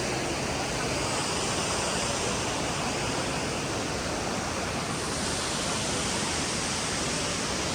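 Waterfall water falling and splashing: a steady, dense rushing noise.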